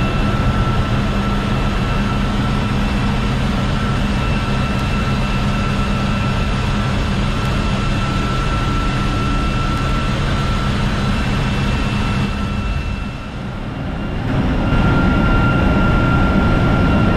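Loud, steady engine-room machinery noise: a constant low hum with a thin, steady high whine over it. It dips briefly near the end and comes back slightly louder and rougher.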